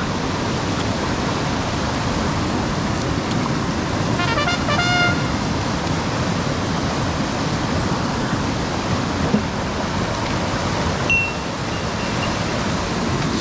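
Mountain stream water rushing steadily. About four seconds in, a brief pitched call sounds, stuttering and then held for a moment, and a short high chirp comes near the end.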